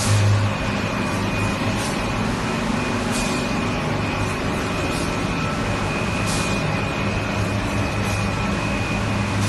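Egg tray production line machinery running: a steady low hum with a thin high whine, broken by short hisses every second or two.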